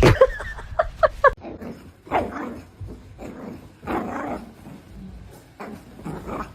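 A dog vocalizing in a string of short barks and yips: a loud sudden bark at the start, a quick run of short pitched yips about a second in, then longer, rougher barking sounds at intervals of about two seconds.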